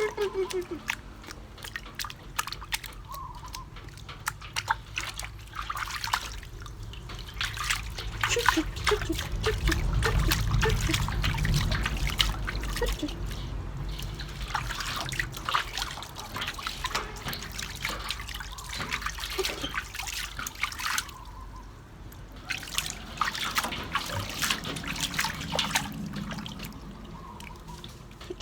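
Bath water trickling, dripping and splashing as a baby monkey is washed, with many short splashes and a louder, fuller stretch of water noise about eight to thirteen seconds in.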